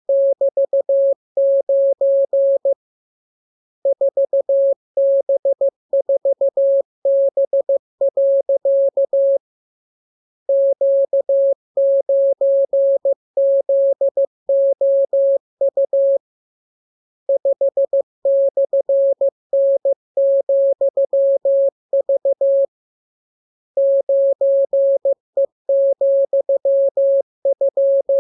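Morse code (CW) sent as a single steady tone of about 600 Hz, keyed quickly into dots and dashes, with a pause of about a second every six or seven seconds between runs of characters. It is a practice radiogram of the letters, numbers and signs being learned by ear.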